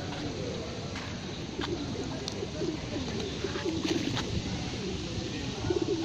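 A flock of feral pigeons cooing, several birds at once, their low, sliding calls overlapping continuously.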